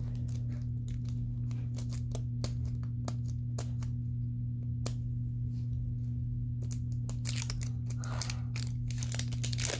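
Plastic wrapping on an L.O.L. Surprise ball being picked at and peeled: scattered small crackles and clicks, turning into denser, louder crinkling in the last few seconds. A steady low hum runs underneath.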